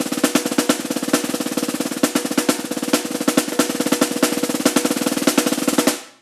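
Snare drum played in a fast, continuous roll with regular louder accented strokes. It stops abruptly about six seconds in.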